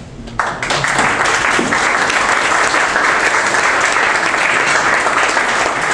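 Audience applause, breaking out suddenly about half a second in and holding steady: many people clapping.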